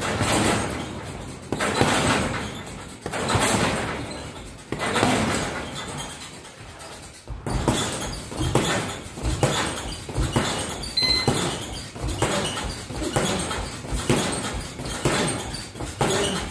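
Boxing gloves punching a hanging heavy bag, a thud with a short ringing tail at each blow. The blows come about every second and a half at first, then quicker, about one every 0.7 s, over the second half.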